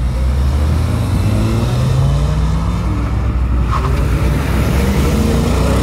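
Mk6 Volkswagen Golf GTI's turbocharged 2.0-litre four-cylinder accelerating away hard, its engine note rising in pitch for about three seconds, dropping at an upshift, then rising again in the next gear.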